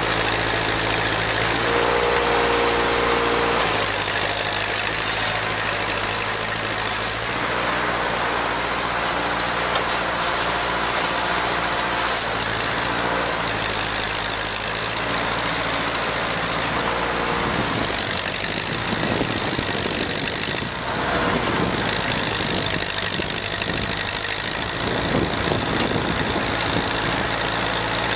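Ford 2N tractor's four-cylinder flathead engine running under a homemade front-end loader. The engine note holds steady at first, then its speed rises and falls several times in the second half.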